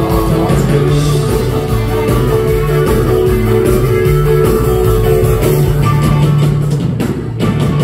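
Dansband playing live music, with a brief dip in loudness near the end.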